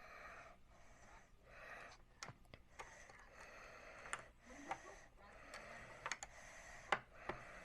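Faint, scattered clicks and taps of plastic LEGO bricks being handled and pressed together, about eight sharp ticks spread irregularly over the few seconds.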